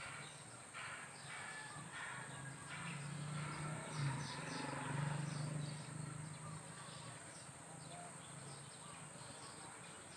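Short, high chirping animal calls repeating at irregular intervals, with a low drone that swells about three seconds in and fades a few seconds later.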